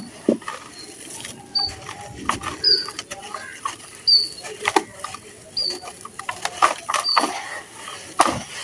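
Gritty wet charcoal or sand-cement chunks crumbling and crunching, with irregular sharp crackles. Behind it, a short high chirp repeats about once a second.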